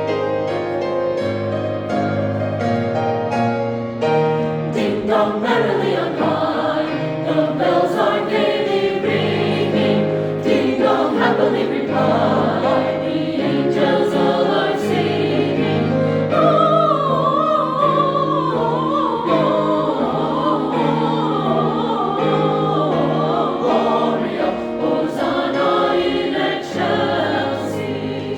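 Choir singing with piano accompaniment. A few seconds of piano open the passage, the voices come in about four seconds in, and a higher vocal line rises above the rest past the middle.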